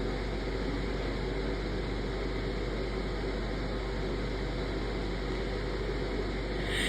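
Steady background hiss with a low hum underneath. Near the end a short breathy hiss rises.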